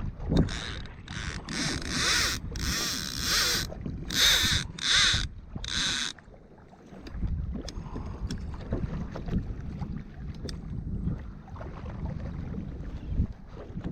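Sea water splashing and sloshing around a kayak, with wind rumbling on the microphone. The first six seconds hold a quick run of short splashy hisses; after that it settles to a low wash with small ticks.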